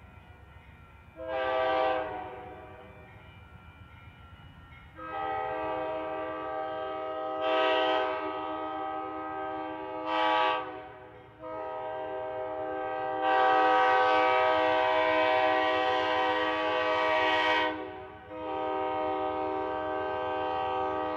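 Amtrak GE P42 locomotive's K5LA five-chime air horn sounding crossing signals. A short blast is followed by long, held blasts that swell louder in places and run almost without a break: the grade-crossing warning.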